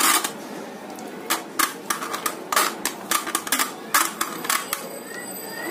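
Metal whisk beaters of a hand mixer knocking and scraping against a steel mixing bowl while thick cake batter is worked, about ten irregular sharp clicks with the loudest at the very start.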